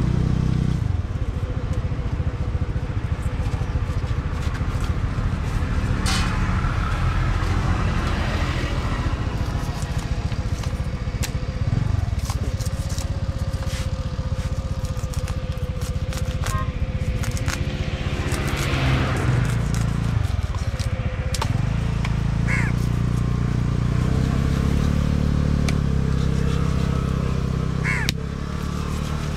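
A knife scraping scales off a fish and knocking on a wooden chopping block, heard as scattered sharp clicks and scrapes over a steady low rumble.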